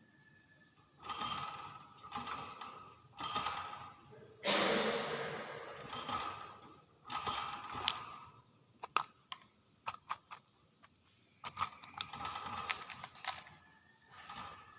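Hill myna making a series of short noisy calls, with a louder hissing one about four and a half seconds in and a quick run of sharp clicks around nine seconds in.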